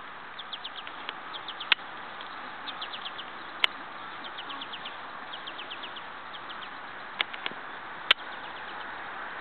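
A songbird singing repeated runs of four to six quick, high, falling chirps over steady background noise, with four sharp clicks standing out through the stretch.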